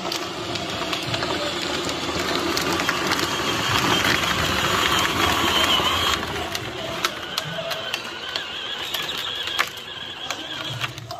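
Child's plastic ride-on toy jeep rolling over a rough, gravelly road under an adult's weight: a dense rattle and clatter of hard plastic wheels and body, loudest around four to six seconds in, then quieter.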